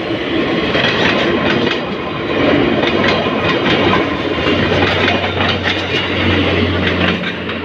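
Passenger train hauled by a diesel-electric locomotive running past on the track, its wheels clacking over the rail joints. A low steady hum of the diesel engine comes in about five seconds in.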